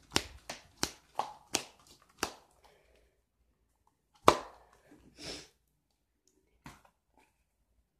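A can of dipping tobacco being packed: the lid is struck by a flicking wrist, about seven sharp taps at roughly three a second. About four seconds in comes a single louder snap, then a brief rustle.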